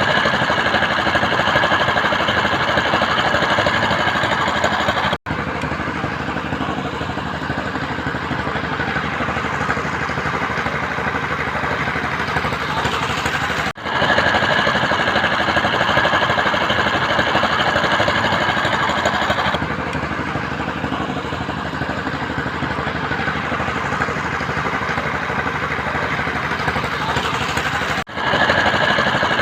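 Construction machinery running steadily: dense engine-like noise with a constant high whine. It cuts out abruptly three times.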